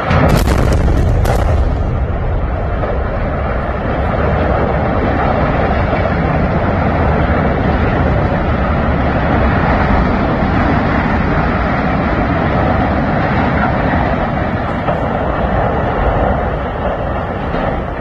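Demolition explosive charges on a steel blast furnace going off in a rapid string of sharp blasts, followed by a long, loud, steady rumble as the structure collapses in a dust cloud.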